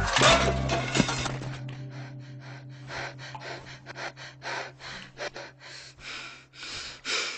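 Quick, sharp gasping breaths from a frightened person, about two or three a second, over a faint steady low hum, with a louder gasp near the end.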